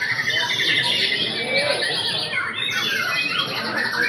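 Several caged white-rumped shamas (murai batu) singing at once in a songbird contest: dense, overlapping fast warbles, trills and chattering calls with no break.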